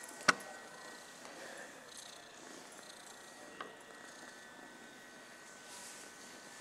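Domestic cat purring while being stroked. A sharp click just after the start is the loudest sound, and a fainter click comes about three and a half seconds in.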